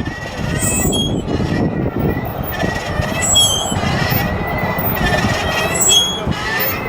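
Children's pull wagon rolling along a path, its wheels rumbling with on-and-off squeaks.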